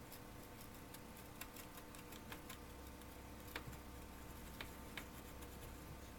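Faint, irregular light clicks and ticks from small-tool soldering work on a circuit board, over a steady electrical hum whose low part gets louder about two and a half seconds in.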